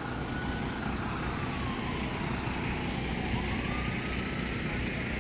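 A faint emergency siren wailing, its pitch slowly falling and then rising again about halfway through, over the low, steady running of a passing truck's engine.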